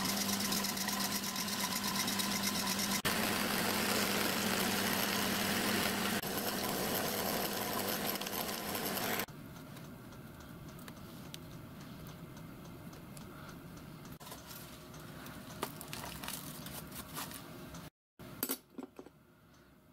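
A drilling machine runs steadily as it drills a small hole into a brass pump body for about nine seconds, then stops. After that come quieter, scattered light clicks and scrapes of a tap being turned by hand in a tap wrench to thread the hole 5BA.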